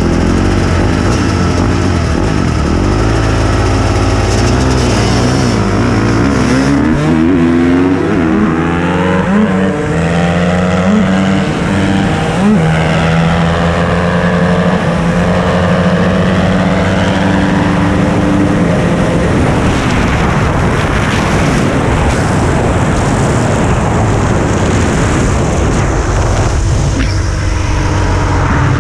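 Two dirt bikes drag racing at full throttle: a 2001 Honda CR250's two-stroke single close up and a 2016 KTM 350's four-stroke engine alongside. The pitch climbs and drops back through several gear shifts in the first half, then holds steadier, with a loud rushing noise over it later on.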